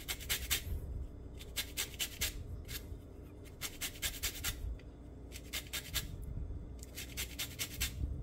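Orange peel scraped against a small handheld metal grater, grating off the outer zest. Quick scraping strokes come in groups of several, with short pauses between groups.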